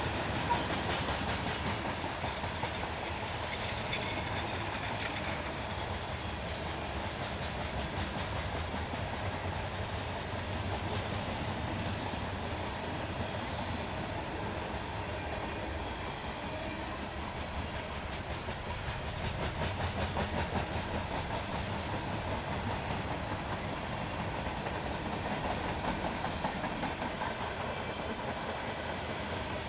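Norfolk Southern freight cars rolling steadily past, their wheels clicking now and then over rail joints.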